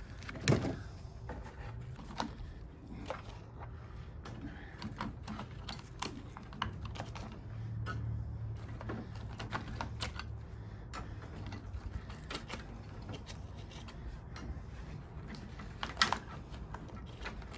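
Irregular light clicks, taps and small knocks of metal scrap pieces being handled and set down, with a louder knock about half a second in and another near the end.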